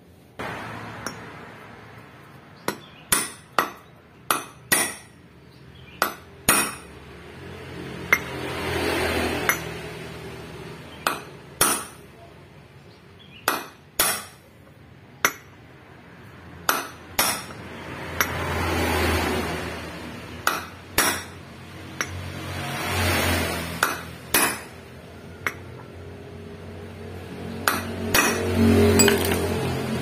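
Hammer strikes driving a bearing into the hub of a Honda Vario 150 scooter's CVT driven pulley through a metal drift: sharp metallic blows, irregularly spaced and some in quick pairs. Between the blows, a low rushing sound swells and fades four times.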